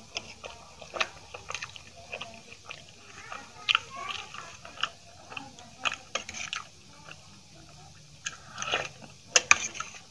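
Close-up wet chewing and lip-smacking of a mouthful of potato-stuffed aloo paratha, in short irregular clicks. In the second half a steel spoon scrapes and clinks in a steel bowl of potato curry, the loudest clicks coming a little before the end.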